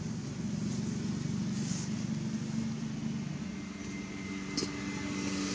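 A motor vehicle engine running steadily in the background, its low hum shifting pitch about halfway through, with one short click near the end.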